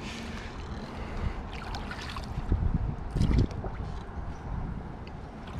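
Kayak paddle pushed and worked down in the water among submerged sticks to free a snagged fish: sloshing water with scattered dull knocks, loudest about halfway through, over a low wind rumble on the microphone.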